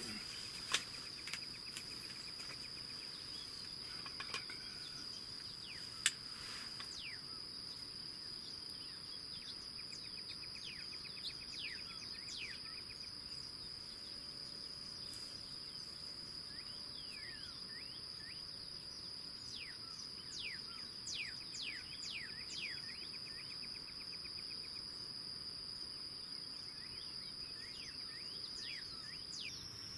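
Quiet outdoor field ambience: a steady, high-pitched insect drone with songbirds calling in short, falling chirps and a few brief buzzy trills, busiest in the second half. A single sharp click about six seconds in.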